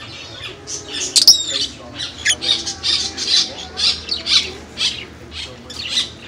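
Small caged parrots, lovebirds among them, calling with rapid shrill chirps and squawks several times a second, with one sharp, loudest note about a second in.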